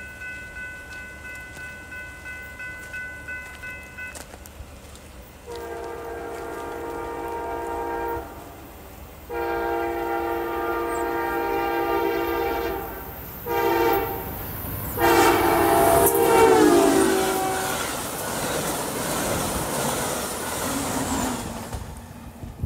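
An Amtrak passenger locomotive's horn sounds the grade-crossing signal: two long blasts, a short one and a final long one. The train then rushes past close by. Faint steady high tones can be heard before the horn starts.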